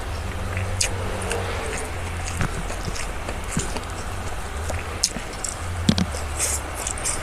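Close-up eating sounds: chewing with scattered short clicks and crackly crunches, the biggest near the end, over a steady low hum.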